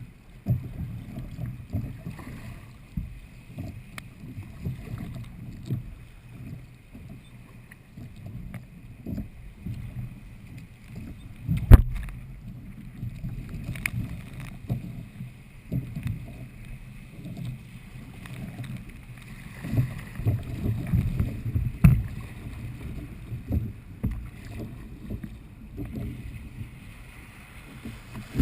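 A kayak paddled through light chop: water sloshing and splashing against the hull with irregular knocks, the loudest about 12 seconds in and another near 22 seconds.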